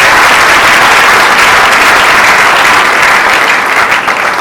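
Congregation applauding loudly, a dense steady clatter of many hands that starts to die down near the end.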